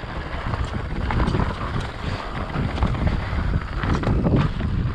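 Mountain bike rolling fast down a dirt singletrack: tyres running over dirt and pine needles, with scattered knocks and rattles of the bike over bumps, under steady wind rush on the microphone.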